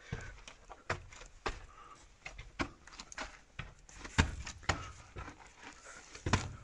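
Footsteps of people walking and scuffing over the dusty, gritty floor of a rock cave, an irregular string of short steps with two heavier footfalls about four seconds in and near the end.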